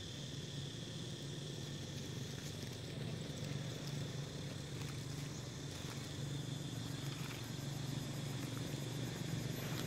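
Steady high-pitched insect drone, like crickets, over a low steady hum, with a few faint ticks.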